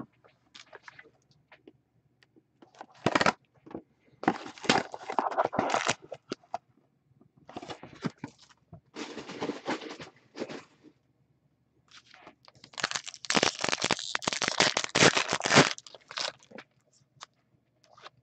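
Trading card box and pack wrappers being handled and torn open: crinkling, crackling and tearing of wrapping and card stock in irregular bursts, the longest crinkling stretch lasting about three seconds in the second half.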